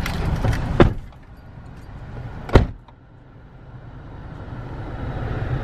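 A car door shuts with one sharp thud about two and a half seconds in, then the car pulls away, its engine and road noise rising steadily.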